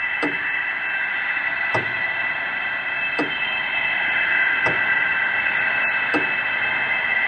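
Eerie sound-design drone of steady hiss with high whining tones. A short knock with a click repeats about every one and a half seconds.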